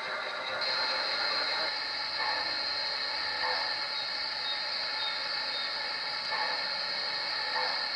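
Gauge 1 model train running on garden track, led by an MTH RailKing Erie Triplex locomotive: a steady mechanical whirring and clicking from its wheels and drive, a little louder from about half a second in.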